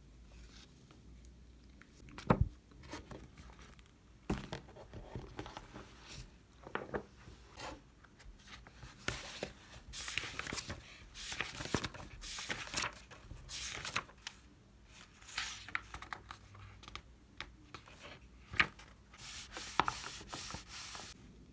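Crinkly packaging being rubbed, rustled and torn open in uneven bursts, with a sharp knock about two seconds in.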